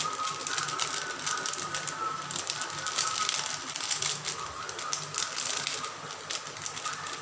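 Chopped vegetables frying in hot oil in a kadai, sizzling with a steady crackle.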